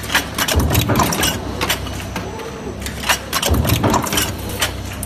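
Transfer stamping press running a deep-drawing die line: a steady machine hum, with a low press-stroke thud about every three seconds followed by a rattle of metal clicks and clacks as the transfer fingers grip and shift the drawn parts between stations.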